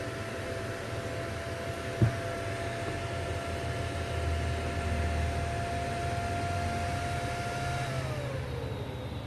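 Steady machine hum with a steady whine above it. A sharp click comes about two seconds in, and near the end the whine falls in pitch as something spins down.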